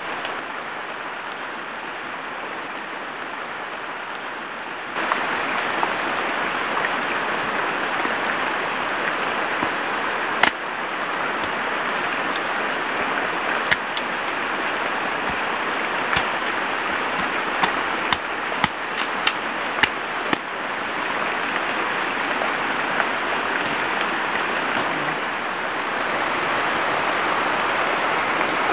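Steady rushing of river water, stepping up in level about five seconds in, with a scattering of sharp clicks or snaps in the middle stretch.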